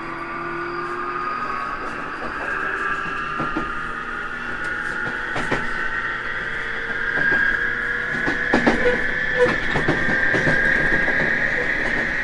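Onboard running sound of a JR Kyushu 811 series electric train as it gathers speed: the traction motors' high whistling 'jet sound' rises steadily in pitch, with wheels clicking over rail joints. The clicking and overall loudness build in the second half.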